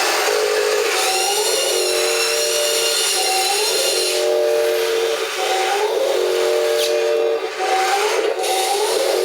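Wheel loader at work: a hiss under steady whining tones, with short whines that rise in pitch every second or so.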